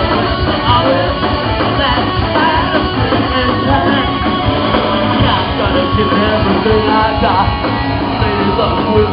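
Punk rock band playing live, loud and continuous: distorted electric guitar, bass guitar and a drum kit, with vocals.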